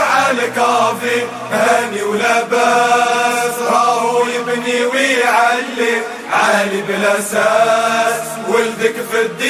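Music: a melody of long notes that slide and bend in pitch, over a low drone for the first two seconds or so.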